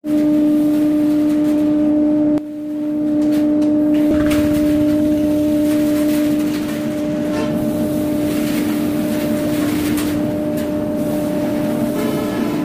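CNC wood-carving router spindle running with a steady hum while cutting wood. The sound dips abruptly about two and a half seconds in, then comes back up.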